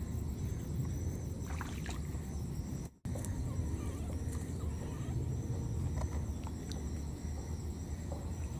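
Steady low rumbling noise with a faint, wavering high whine and a few scattered light ticks; the sound cuts out briefly about three seconds in.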